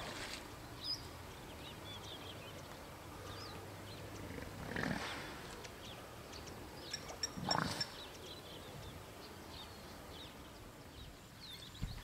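Hippos calling from the water: two short louder calls near the middle, a couple of seconds apart, over small birds chirping.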